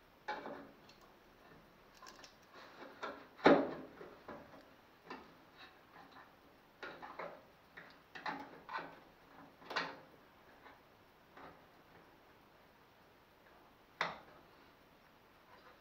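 Scattered clicks and knocks of metal being handled: a copper backing plate is positioned against a steel bracket and clamped in place with locking pliers. Two sharper knocks stand out, a few seconds in and near the end.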